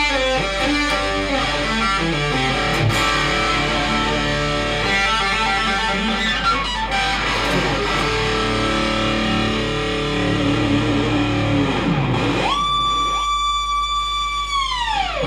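Ibanez electric guitar with a locking tremolo played solo: fast picked runs and note patterns, then a note that sinks, swoops sharply up to a high held tone and is dived steeply back down with the tremolo bar near the end.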